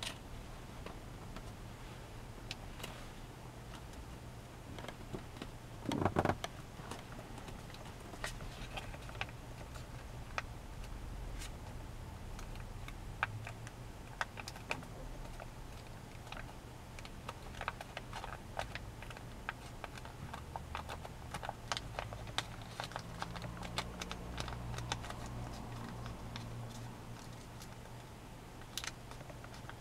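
Origami paper crinkling and rustling between the fingers as it is folded and creased, in many small scattered clicks, with a louder rustle about six seconds in.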